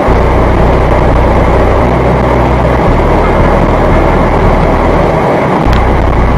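Skoda Octavia RS's 2.0 TDI diesel engine pulling steadily at about 4,000 rpm in sixth gear near top speed, about 248 km/h. Heavy wind and road noise fill the cabin over a steady low engine drone.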